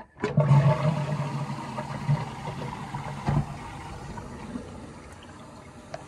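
Test flush of a newly fitted concealed-cistern toilet, set off from the push-button frame: a sudden rush of water into the pan that slowly tails off into a quieter run, with a single knock about three seconds in.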